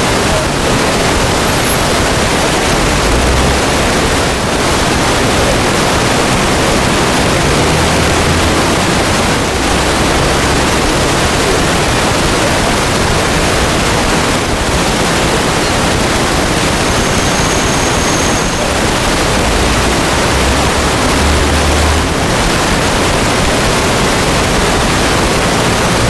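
Loud, steady static hiss spread evenly across all pitches, with no other sound standing out and a few brief dips every few seconds.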